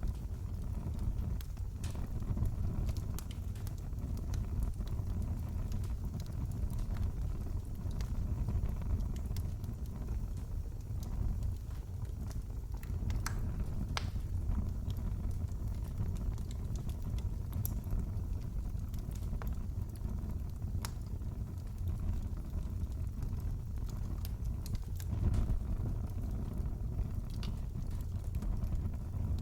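Fireplace wood fire crackling: a steady low rumble with scattered sharp pops and snaps.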